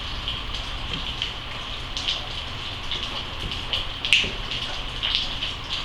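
Small clicks and rustles of hands handling small objects over a steady hiss, with a sharper click about four seconds in.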